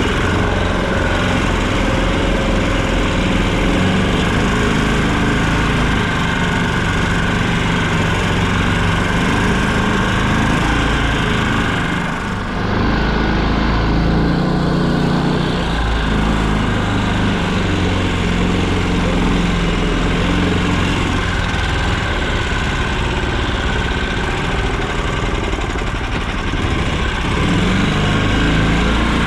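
Motor vehicle engine running steadily under way, easing off briefly about twelve seconds in before picking up again.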